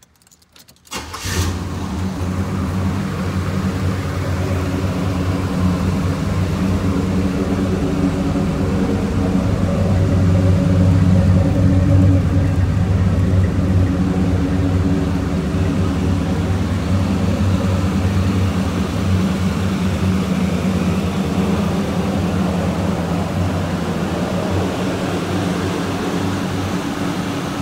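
1986 Chevrolet Monte Carlo SS's 5.0-litre V8 (L69 305) cold-started: a brief crank, catching about a second in, then idling steadily.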